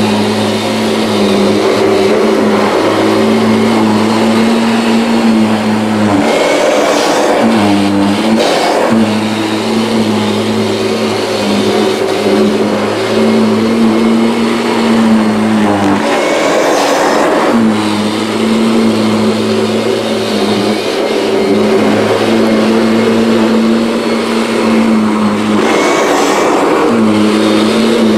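Kirby G6 upright vacuum cleaner running on a rug with a steady motor hum, its pitch briefly dipping and wavering three times, about every nine seconds, as the load on it changes.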